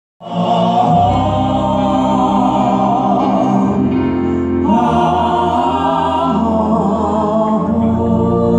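Live gospel music: a vocal group and band holding sustained chords, moving to a new chord about four and a half seconds in.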